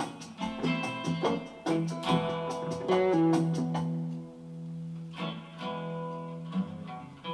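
Slow blues on acoustic guitar and slide guitar: a run of single picked notes, then a low note held and left to ring out and fade, with new notes picked near the end.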